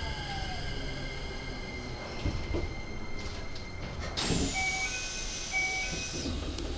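Inside a stopped Keikyu 1000-series commuter car: a steady electrical hum from the car's equipment, then about four seconds in a sudden hiss of air with a few short two-note beeping chimes, typical of the doors closing before departure.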